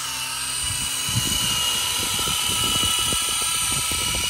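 Small remote-control toy helicopter's electric motors whining steadily at speed, with a choppy low rumble from the spinning rotors joining about half a second in.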